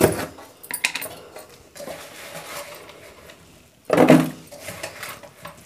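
Steel spoon scraping and clinking against a stainless steel bowl as oily mango pickle is scooped out, with a few clicks near the start and one louder scrape about four seconds in.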